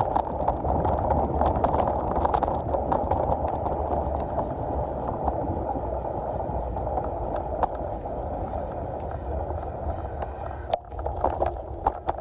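Steady rush of wind on the microphone and rolling road noise from riding along a street, with scattered small clicks and rattles. The rush drops off suddenly near the end as the ride slows.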